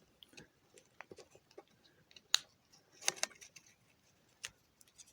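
Plastic strap being worked through a plastic clip buckle by hand: scattered small clicks and rustles, with a sharp click a little past two seconds and a few more around three seconds.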